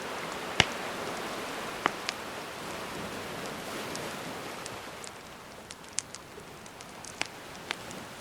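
Gentle sea waves washing, the surf swelling and then easing off partway through, with a wood campfire crackling in sharp, scattered pops; the loudest pop comes a little over half a second in.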